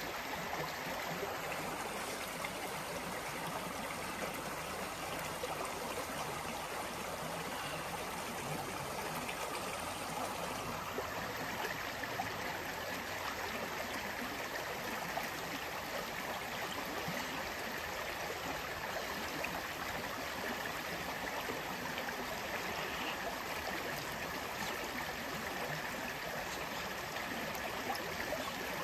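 Creek water running steadily over rocks, a constant rushing.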